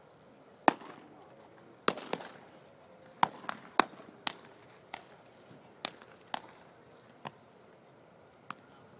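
Baseballs smacking into catchers' mitts: about a dozen sharp pops at uneven intervals from several pitchers throwing side by side, the loudest coming about a second in.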